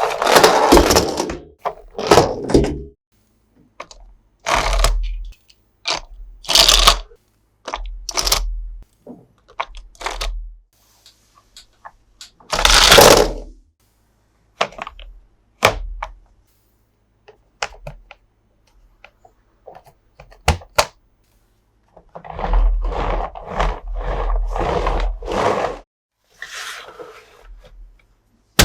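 Toy packaging being handled and opened: a series of separate crackling, scraping and knocking noises, some brief and some lasting a second or two, with a longer run of rustling about three quarters of the way through.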